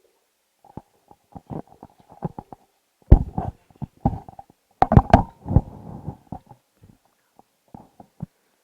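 Irregular thumps, knocks and rustling close to the microphone: handling and movement noise, loudest in a cluster of heavy thumps about three and five seconds in.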